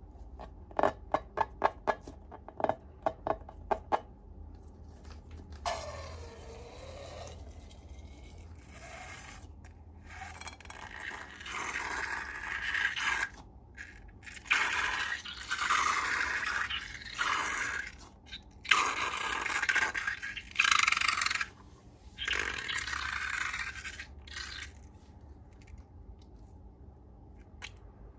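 Slime being worked by hand: a quick run of sharp clicks and pops in the first few seconds, then repeated stretches of wet scraping and squishing, each lasting a few seconds.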